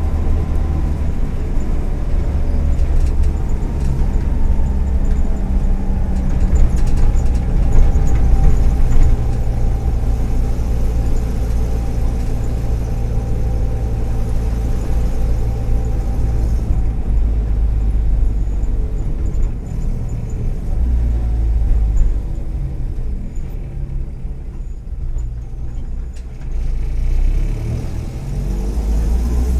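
Volkswagen EA111 1.4-litre four-cylinder engine of a 2009 Kombi running on the road, with the engine note easing off about two-thirds of the way through and picking up again near the end. The owner puts its occasional misses down to worn spark plug leads and ignition coil, and its other noises to a probably cracked exhaust manifold and rattling interior trim.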